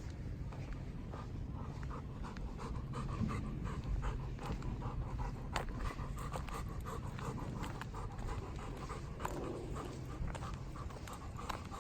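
Golden retriever panting steadily, with scattered light clicks throughout.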